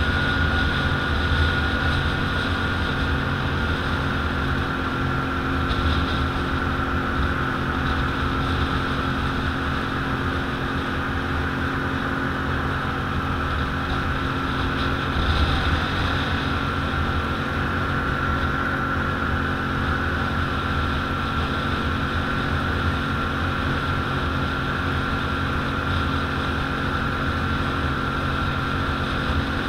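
ATV engine running steadily while riding, a steady high whine above the low engine note.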